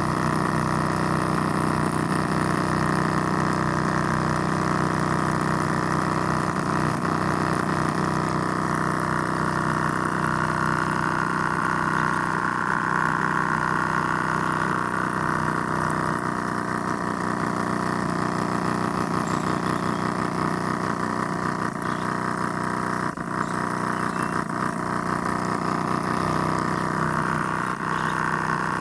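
Mini borewell drilling machine's motor running steadily with an even hum, with a short dip in level about four-fifths of the way through.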